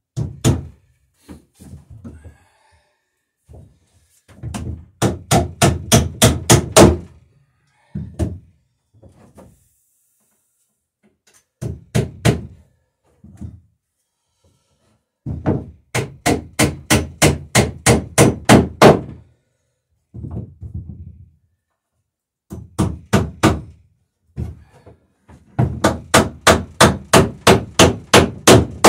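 Hammer driving nails into the wooden rail of a dory: three runs of quick blows, about four a second, each run getting louder, with a few single taps between.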